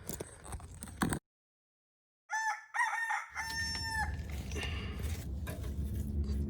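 A rooster crows once, a broken call ending in a long held note, straight after a second of dead silence. A low steady rumble follows.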